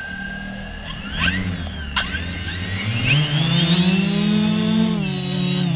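Drone's propeller motors whining and humming as it spins up and lifts off, the hum rising in pitch about three seconds in and then holding steady.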